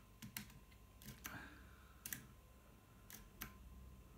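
Faint, irregular clicks and light taps from handling an opened cordless drill's trigger switch and the crocodile test clips clipped to it, about eight in all, with no motor running.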